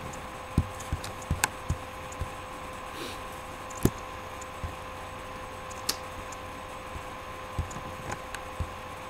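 Scattered light clicks and taps at irregular intervals, over a steady faint electrical hum.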